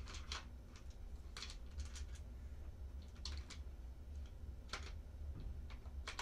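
Scattered light clicks and ticks as an airsoft PEQ-15 laser unit is slid and nudged along a Picatinny rail to set its position, with a low steady hum underneath.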